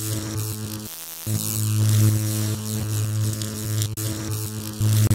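Electrical buzzing sound effect: a steady, loud mains-like hum with hiss over it, cutting out briefly about a second in.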